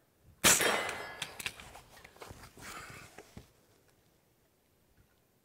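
Two single gunshots: one about half a second in, echoing for about a second and followed by a few smaller clicks, and a second one right at the end.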